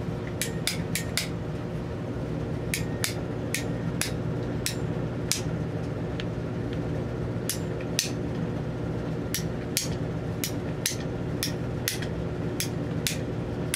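Ratcheting PVC pipe cutter clicking as its handles are worked to cut through a PVC pipe: runs of sharp clicks, a few a second, broken by short pauses. A steady low hum runs underneath.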